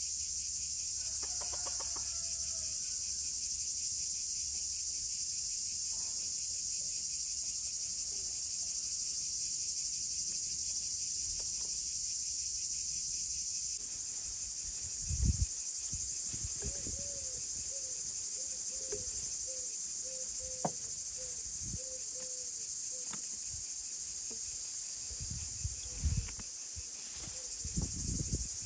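Crickets chirping in a steady, high chorus. In the middle a hen clucks a string of short notes, and a few soft knocks come from things handled on the table.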